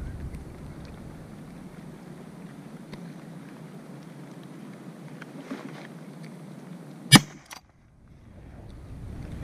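A single shotgun shot about seven seconds in, a sharp crack far louder than anything else, fired at a duck passing over the marsh, followed by a brief hush. Before it, only a steady low background hiss of wind and open marsh.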